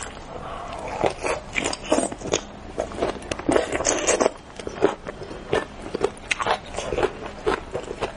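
Close-miked eating sounds of a person biting and chewing spicy braised carp: an irregular run of wet smacks, lip clicks and soft crunches, several a second.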